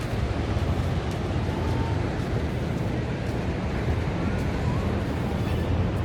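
Steady noise of breaking surf on the beach, with a low wind rumble on the microphone.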